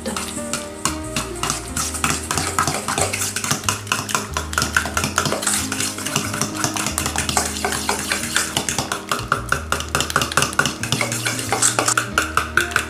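A metal spoon stirring a ricotta, egg yolk and sugar mixture in a stainless steel bowl, scraping and clicking against the bowl in quick, continuous strokes.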